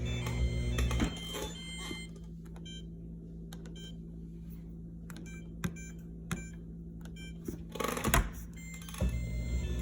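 Whirlpool dishwasher's drain pump humming, cutting out about a second in. A run of short electronic beeps and clicks from the control panel follows as buttons are pressed, then a brief rattle, and the drain pump hum starts up again near the end. The machine is stuck in an overfill error (F8 E4) and keeps draining instead of starting, which the owner thinks may be a broken float sensor.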